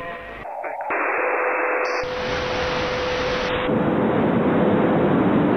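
Loud static hiss from a degraded videotape, jumping abruptly in tone several times, with a steady humming tone running through it from about a second in.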